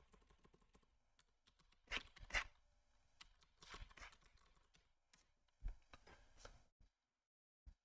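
Faint typing on a computer keyboard: irregular soft key clicks with a few louder strokes, stopping about seven seconds in.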